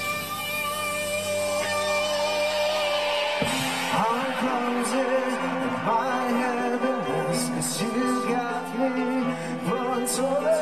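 Live pop-rock band playing, with electric guitars and a drum kit, and a man singing into a microphone; the singing comes in about a third of the way through, with cymbal crashes further on.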